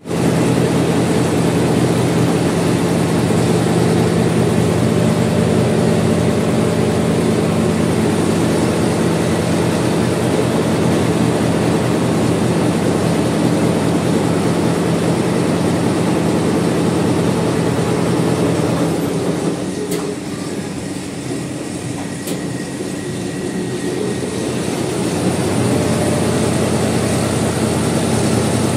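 Multi-head Richpeace computerized embroidery machine running, its many needle heads stitching at once with a fast, steady clatter. It goes quieter for a few seconds about two-thirds of the way through, with a couple of sharp clicks, then picks up again.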